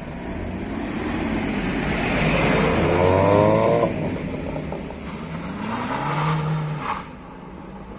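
Tuned car engine accelerating hard, its note rising to a peak about three and a half seconds in and falling off as the throttle lifts, then revving up again. A sharp exhaust bang comes near the end.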